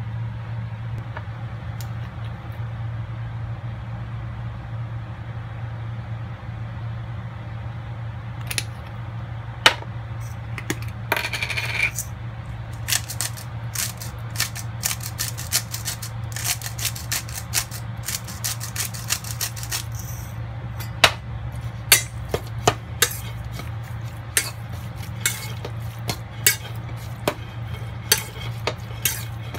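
A hand-twisted spice grinder clicks and rasps over a stainless steel bowl, followed by a run of sharp separate metallic clinks near the end, like a fork against the bowl. A steady low hum lies underneath throughout.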